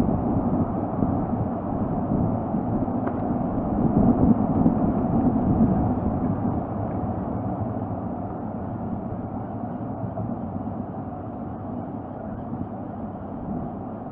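Gusty wind buffeting the nest camera's microphone: a low rushing noise that swells in gusts about four to six seconds in, then eases off.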